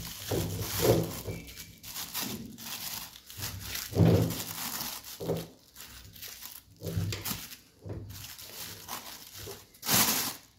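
Thin clear plastic bag crinkling and rustling in irregular bursts as it is gathered around a plant pot and tied shut with wire.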